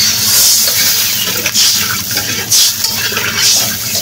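A metal spatula stirring and scraping through a watery potato curry in a kadai, in strokes about once a second, over a steady hiss from the hot curry just after water has been added.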